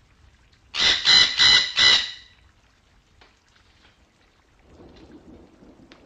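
A parrot calling: four loud squawks in quick succession, starting about a second in and lasting about a second and a half.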